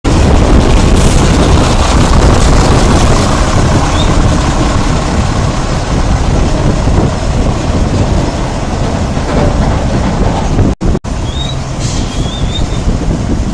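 Loud rumble and metallic rattle of a container truck and its empty trailer chassis driving on the terminal lane, easing a little after the first few seconds. Short high squeaks come twice, once a few seconds in and again near the end, and the sound cuts out briefly twice just before the second squeak.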